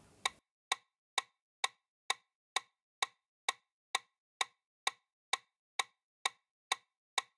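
Quiz countdown timer's clock-tick sound effect: short, sharp, even ticks a little over two a second.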